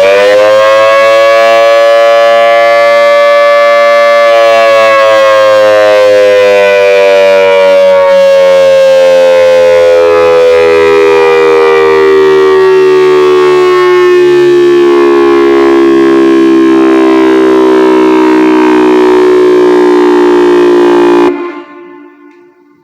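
Whelen WPS 4004 electronic outdoor warning siren sounding a test tone on its newly installed batteries, very loud. It rises quickly to a high pitch, holds for a few seconds, then sinks slowly in pitch and cuts off abruptly near the end.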